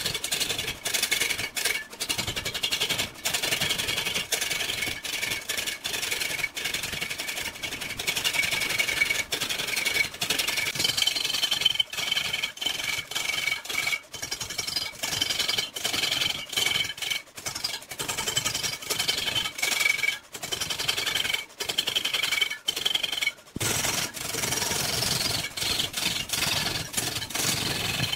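Hand-held turning tool cutting into a large log spinning on a wood lathe: a rough, rapid chattering scrape with a high whine through it, broken by brief gaps as the tool leaves the wood. The cut gets fuller and deeper for the last few seconds.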